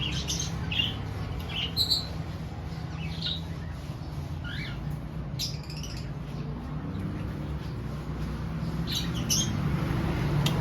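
Birds squawking and calling in short, scattered bursts, a few of them falling in pitch, over a steady low rumble.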